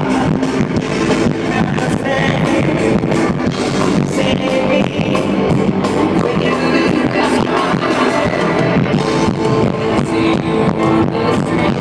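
Live pop-rock band playing a song, with drums, electric guitar and singing.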